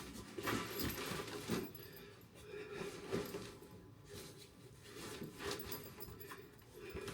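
Irregular rustling and light clinks of belongings being handled and packed, a string of short handling noises one after another.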